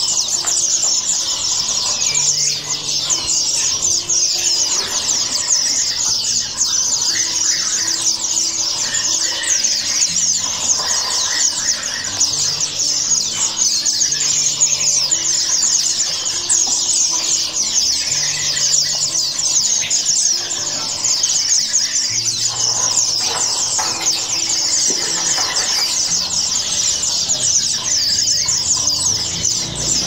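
Many caged small birds, sunbirds among them, chirping at once in a dense, unbroken high-pitched chorus of quick chirps.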